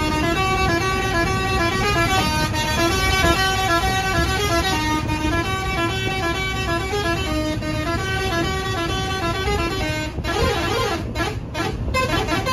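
A musical vehicle horn playing a tune of short stepped notes for about ten seconds over the low rumble of the bus, then a quickly warbling tone near the end.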